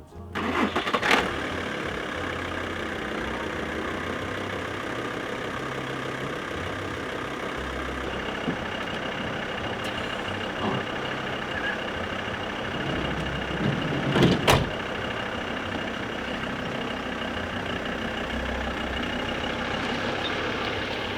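Motor vehicle running steadily, with a sharp knock about a second in and a couple more around fourteen seconds in.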